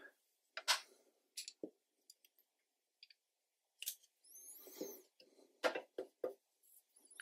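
Brushes and painting tools handled against a metal watercolour paint box: a scatter of sharp taps and clicks, with a scrubbing, squeaky swish about four to five seconds in.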